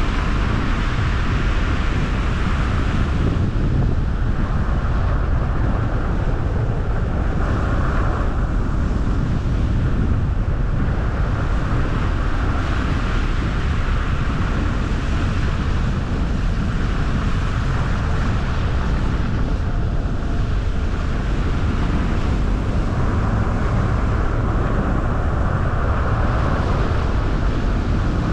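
A car driving at steady speed: continuous low rumble of road and tyre noise with wind noise, a higher hiss swelling and fading every few seconds.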